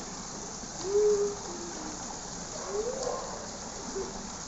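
Steady splashing hiss of fountain spouts pouring into a swimming pool. Over it come two short wordless vocal sounds: one about a second in, the loudest moment, and a rising one near three seconds.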